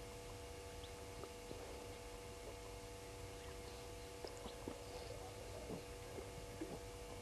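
Quiet outdoor bush ambience under a steady hum, with scattered faint ticks and a few faint, short, high distant bird chirps.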